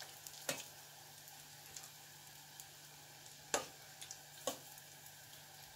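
Curd donut balls deep-frying in hot vegetable oil, a steady soft sizzle. A metal spoon knocks against the stainless steel pot a few times, once about half a second in and twice near the end, while the balls are fished out.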